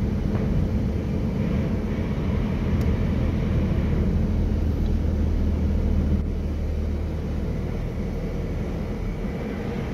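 Strong windstorm gusts rushing and buffeting over the steady low hum of a pickup truck's engine. The wind swells in the middle and eases a little about six seconds in.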